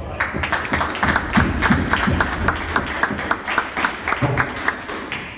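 Spectators clapping, a steady run of handclaps about four to five a second, applauding the end of the squash game.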